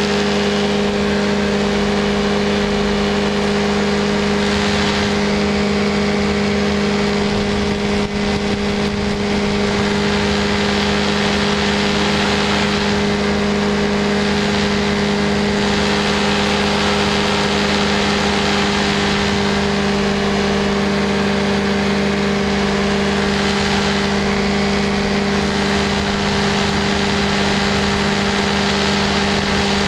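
Ultralight aircraft's engine and propeller running steadily at cruise power in flight, one even pitch throughout with a wide rushing noise over it.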